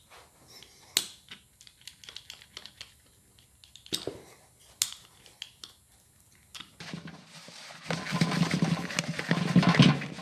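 A small hand roller pressed around a freshly glued rubber wrist seal, giving scattered light clicks and scratches. About seven seconds in, a louder steady rubbing rustle takes over as the seal is worked in talcum powder.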